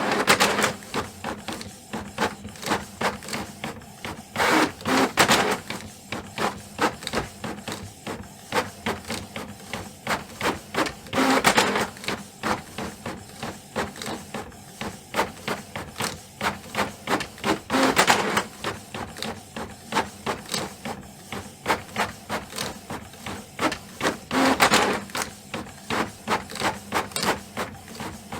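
Canon printer printing: a fast, even run of mechanical clicks as it works, with a louder, rushier burst roughly every six to seven seconds.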